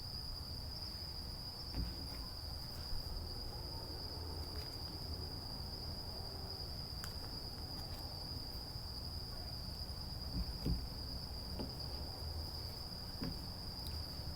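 A steady high-pitched drone with no break, over a low hum, with a few faint soft clicks scattered through it.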